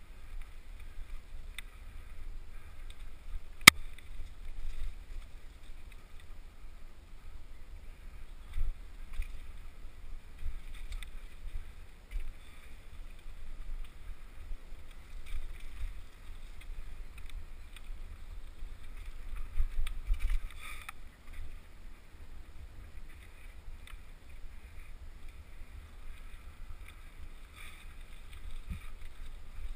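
Muffled low rumble and scattered knocks of a mountain bike rolling fast down a rough dirt trail, picked up by a helmet-mounted camera, with one sharp click about four seconds in.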